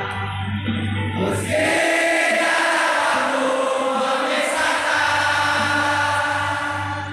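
A large crowd of football supporters singing a chant together in unison.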